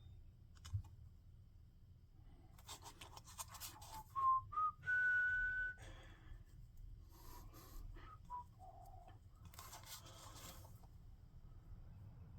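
A man whistling softly to himself: a few short notes and one longer, higher note held for about a second, with airy breath hiss between them.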